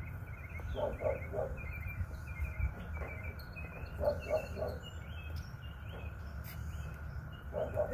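Small birds chirping in quick repeated series, with a lower three-note call twice, over a steady low rumble.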